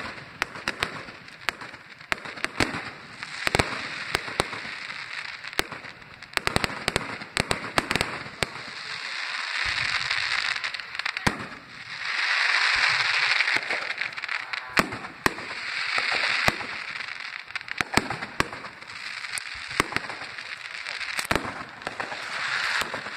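A really loud fireworks display: a rapid, irregular series of sharp bangs and cracks, with stretches of dense crackling lasting a second or two, the longest about halfway through.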